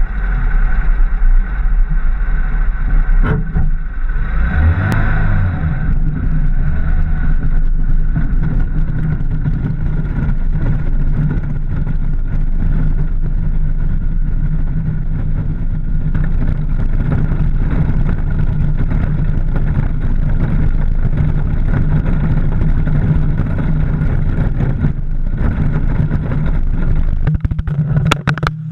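Steady loud rumble and wind noise from a low-mounted action camera travelling fast along a gravel road, with a short burst of clattering knocks near the end.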